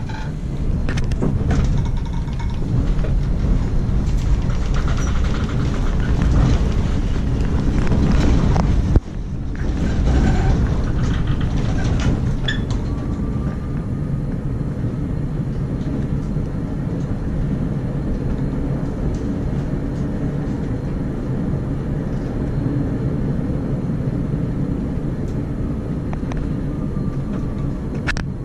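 Bombardier Variotram low-floor tram running along its line, heard from inside the passenger cabin: a steady low rumble of wheels on rails. Scattered clicks and rattles come through in the first half, with a sudden brief break about nine seconds in.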